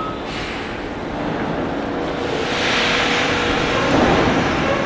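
New York City subway train starting to pull out of the station, its running noise growing louder about two seconds in.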